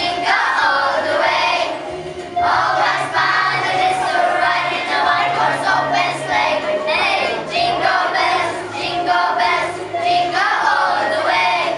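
A group of children singing a Christmas song together in unison, over a steady musical accompaniment.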